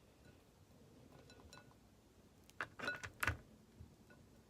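Light clinks and knocks of items being handled on a table: a few faint ticks about a second in, then three sharper knocks in the second half.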